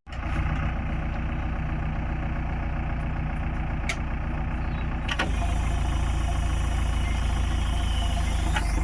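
Heavy diesel engine running steadily at low revs. About five seconds in there is a click and the engine note deepens and grows louder, and a short rising whine comes near the end.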